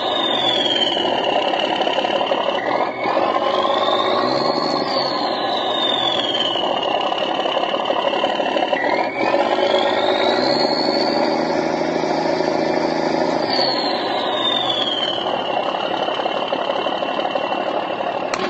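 M35A2 army truck engine sound effect running, with a high whine that climbs and then falls back several times as the engine speeds up and settles.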